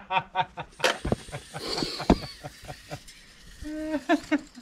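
Boots stepping on a concrete footing, with two heavy thumps about a second apart. Short voiced sounds from a person at the start, and a brief hum near the end.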